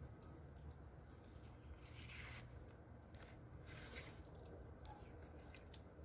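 Faint handling sounds of a Kydex knife sheath on a leather belt: light clicks, and two short scraping swishes about two seconds and about four seconds in.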